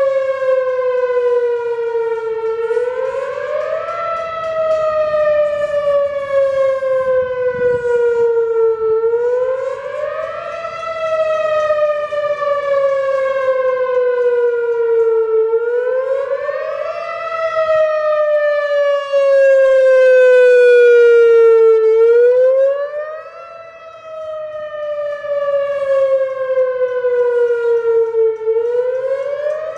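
Whelen WPS-4004 electronic outdoor warning siren sounding its wail tone, really loud. The pitch climbs quickly and then falls slowly, repeating about every six and a half seconds. It grows loudest about two-thirds of the way through, then dips briefly.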